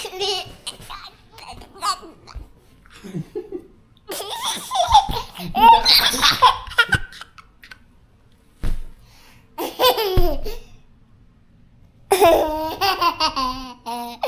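A baby laughing in several separate bursts with short quiet gaps between.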